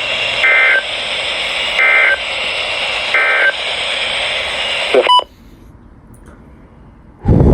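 Weather radio speaker hissing with static, with three short touch-tone (DTMF) beeps about 1.3 seconds apart. About five seconds in it clicks and drops much quieter, then a loud burst of static starts near the end.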